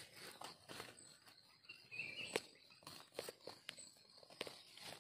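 A knife scraping and tapping in dry soil and leaf litter while wild mushrooms are dug out, with the leaves rustling and a scatter of sharp clicks, the loudest about two and a half seconds in.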